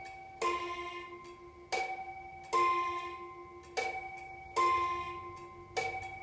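Restored Gustav Becker wall clock's strike sounding two alternating notes in high-then-low ding-dong pairs, about one pair every two seconds. Each note rings on and fades before the next is struck; six strikes are heard.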